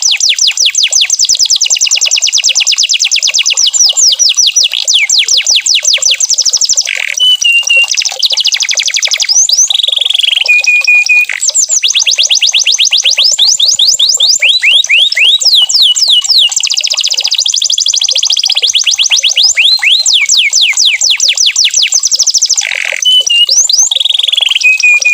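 Domestic canary singing a loud, continuous song of fast trills made of rapidly repeated falling notes. The trills are broken a few times by short held whistled tones.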